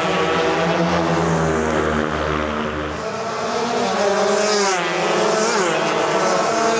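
Several motorbike engines running hard and revving, their pitch climbing as bikes accelerate, most clearly about four seconds in and again near the end.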